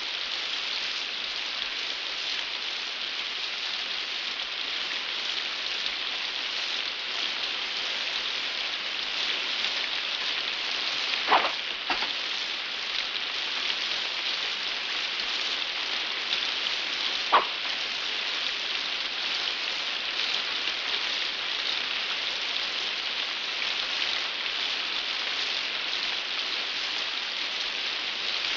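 Steady heavy rain falling and pattering on the street. A couple of brief sharp knocks come about eleven seconds in, and another about six seconds later.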